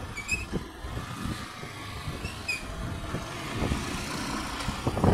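Wind buffeting the microphone of a moving motorcycle over a low rumble of the bike and the road. Two short high chirps come about two seconds apart.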